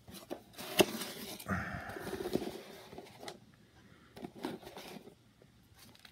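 Hands handling a cardboard box and pulling foil trading-card packs out of it: scattered knocks and rustles, a sharp knock near the start, then a longer scraping rustle.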